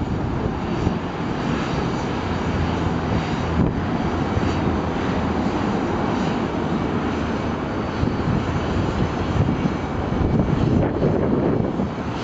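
A Boeing 737-800's CFM56-7B turbofan engines at takeoff thrust as the jet climbs away just after lift-off: a steady, deep rumble.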